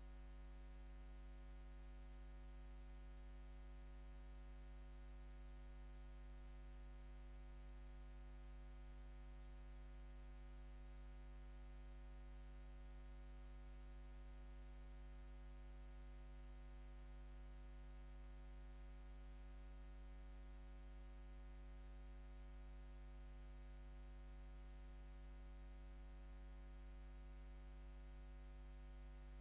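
Near silence: a steady low hum with faint hiss, unchanging throughout.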